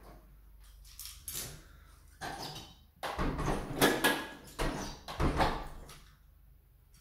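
An apartment's front door being handled and shut: a string of latch and handle clicks and knocks with rustling, busiest and loudest from about three to six seconds in.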